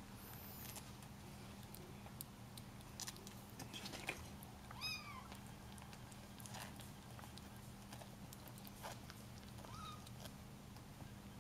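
Bengal kittens mewing: a short, high mew rises and falls about five seconds in, and a briefer rising one comes near the end. Faint scattered clicks of a kitten eating raw salmon run underneath.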